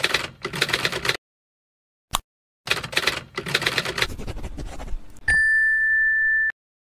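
Rapid clicking like typewriter keys in two runs, split by a stretch of dead silence and a single click. Then a steady high beep is held for about a second and cuts off sharply.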